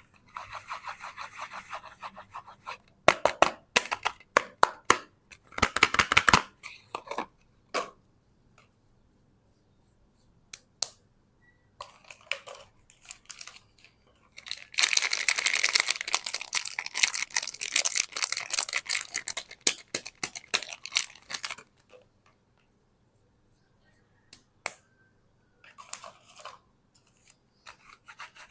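Soap wrappers being unwrapped by hand, crinkling and tearing in several bouts with quiet pauses between, and a run of sharp clicks and snaps a few seconds in.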